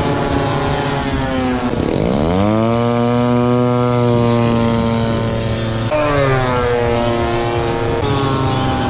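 Radio-control model warbird's propeller engine running. Its pitch dips sharply and climbs back about two seconds in, then holds steady. It drops again near six seconds and rises near the end.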